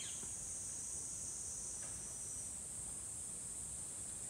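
Insect chorus: a steady, high-pitched drone that runs on without a break.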